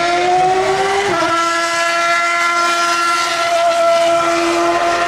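Formula 1 car engine at high revs. The pitch climbs, steps down once about a second in as the car upshifts, then holds a steady high note.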